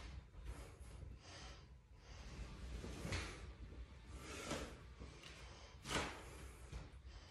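A person breathing hard in short, forceful breaths a second or so apart while doing barbell back squats, the loudest breath about six seconds in.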